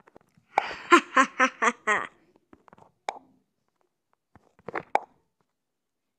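A child's voice giving a quick villain's laugh of about five short bursts, followed by a few isolated clicks.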